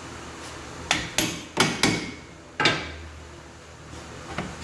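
Hammer blows on a steel bolt in a car's rear axle mount, driving the seized bolt out: five sharp metallic strikes in under two seconds, each ringing briefly, then a light tap near the end.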